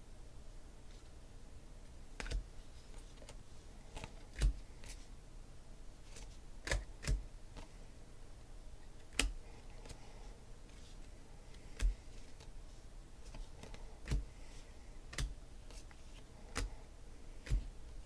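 Glossy football trading cards being flipped through by hand, one card at a time moved to the back of the stack, giving about a dozen short, sharp clicks and snaps spaced irregularly a second or two apart.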